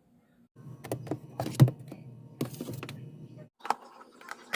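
A quick run of clicks and knocks over a low hum. The hum starts about half a second in and stops about three seconds later, and a few more separate clicks follow near the end.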